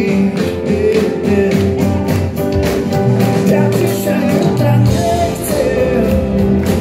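Blues-rock band playing live: electric guitar and sustained chords over a steady drumbeat.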